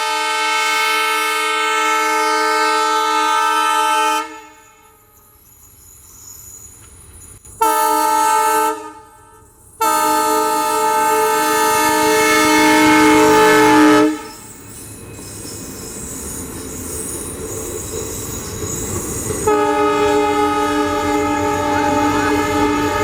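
WDP-4D diesel locomotive's horn sounding in repeated blasts: one lasting about four seconds, a short blast a few seconds later, then a longer one that grows louder as the locomotive nears. After it cuts off, the rumble and wheel clatter of the passing train build up, and the horn sounds again near the end.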